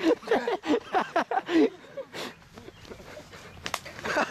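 Several young voices yelling and shrieking without words for the first two seconds or so, then quieter with a couple of short knocks, and more yelling just before the end.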